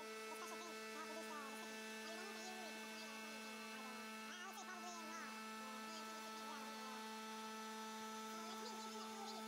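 A CNC stone machining centre's spindle running steadily with a hum of several fixed tones while its water-cooled tool cuts a white stone worktop. Irregular wavering squeals sound over the hum throughout.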